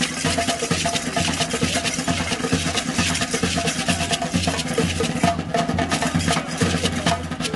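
Percussion-led music with a steady, rhythmic low beat under a dense clatter of higher strokes.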